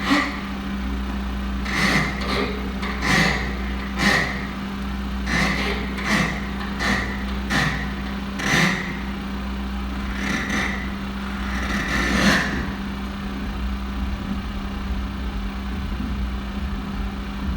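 Live electronic performance sounds: about a dozen short noisy bursts at irregular intervals, over a steady low electrical hum that carries on alone for the last few seconds.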